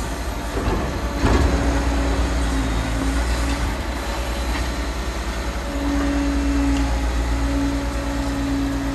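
Liebherr R940 Demolition excavator at work: its diesel engine running under load with a deep rumble and a hydraulic whine that comes and goes. A loud knock comes about a second in.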